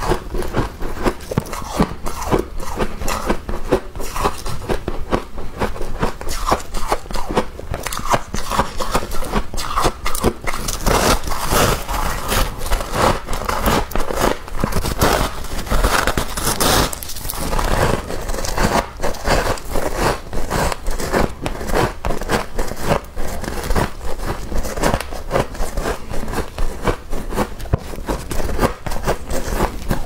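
Fluffy freezer frost crunching as it is bitten and chewed and handled in gloved hands, a dense run of crisp crackles, with a louder crunch about sixteen seconds in.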